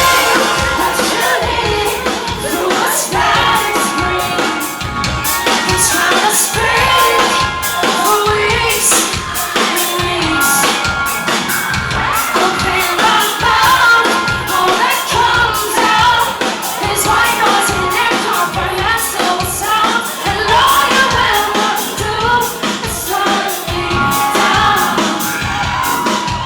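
Live rock band playing through a PA, with a steady drum beat and a sung lead vocal, over crowd noise.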